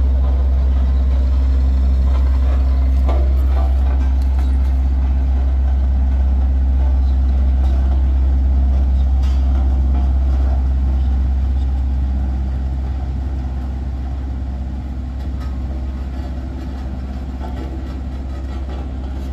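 Heavy truck engine running steadily at idle, a deep, even drone that grows somewhat quieter in the second half.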